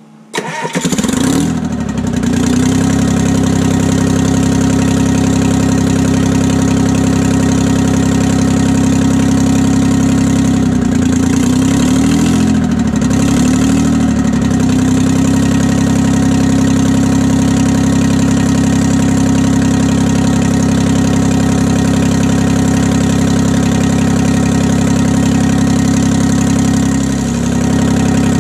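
Freshly overhauled 1968 Detroit Diesel 3-53T, a three-cylinder two-stroke turbocharged diesel, cold-started: it fires and catches within about a second, then settles to a steady idle. About eleven seconds in the engine speed rises and falls for a few seconds, and the sound dips briefly near the end.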